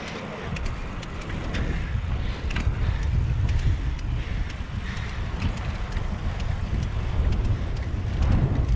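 Wind buffeting the microphone over a steady low rumble of wheels rolling along a concrete path, with scattered light clicks.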